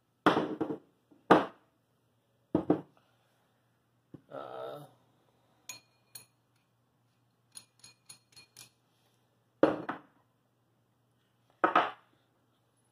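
Metal telescope-mount parts being lifted and set down on a work table: a series of sharp knocks and clunks, with a quick run of light metallic clinks in the middle.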